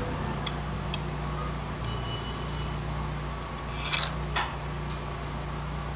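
Faint clicks and rustles of thread and small metal parts being handled at the looper of an industrial overlock machine during threading, over a steady low hum, with a brief clatter about four seconds in.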